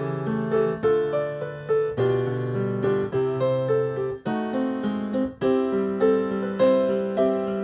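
Yamaha grand piano played solo: chords and a melody line, notes struck two or three times a second, each ringing and fading.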